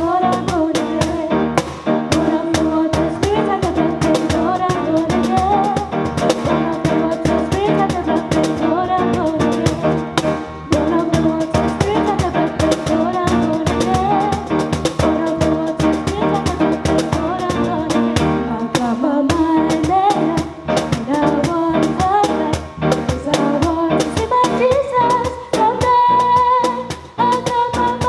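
A song with singing over a steady drum-kit beat.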